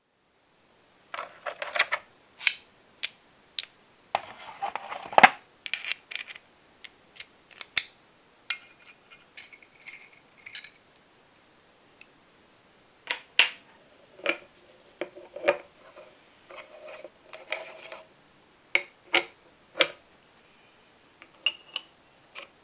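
Small metal parts of a V-twin engine model kit clinking, tapping and scraping as they are handled and screwed together by hand: an irregular run of sharp clicks and clinks, with a longer rattle about four to five seconds in.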